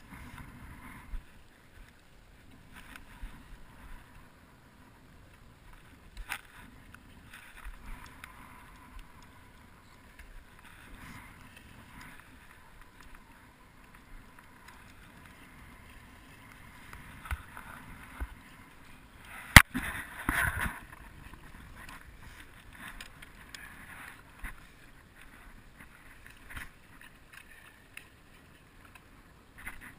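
Faint wind and water around a drifting small fishing boat, with scattered light knocks. One sharp click about two-thirds of the way through, the loudest sound, followed by a second or so of rustling.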